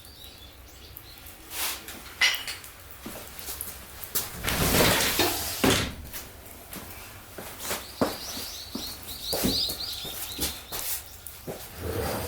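Firewood fire in a fire stand, crackling with scattered sharp pops. Midway comes a louder rustling stretch of about a second and a half, and later a run of thin, high, wavering chirps.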